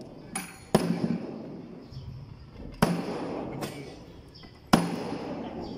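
Heavy hammer blows on the top edge of a hardwood boat plank, three loud strikes about two seconds apart with lighter knocks between, driving the plank down onto the wooden dowels of the seam below it.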